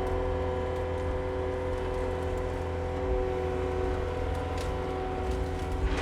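An engine running at a steady speed: a low rumble with a steady whine over it. A few faint ticks come in over the second half.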